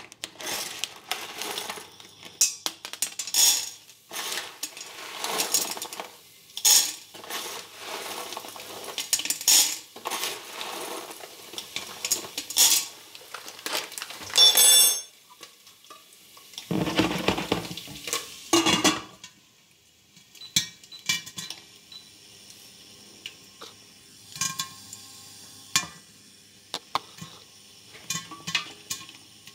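Dried popcorn kernels dropping into an empty stainless steel pot, clicking and rattling against the metal with clinks of metal on metal. Past the halfway point the clatter thins to fewer, quieter ticks.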